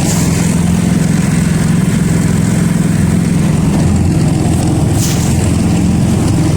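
A motor vehicle's engine runs steadily with a low drone, close to the microphone. Short crackles come near the start and again about five seconds in.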